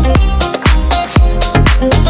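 Background music: an instrumental stretch of a dance-pop track with a steady kick-drum beat, about two beats a second.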